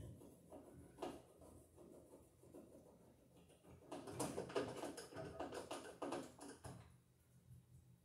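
Hand screwdriver turning screws to fasten a GFCI receptacle into its wall box: faint clicking and scraping of metal on metal, busiest a few seconds in.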